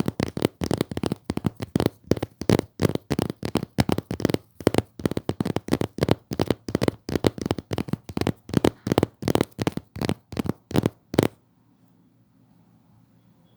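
Close-miked ASMR trigger sounds made by hand: a fast, even run of short scratchy strokes, about three a second, that stops suddenly about eleven seconds in.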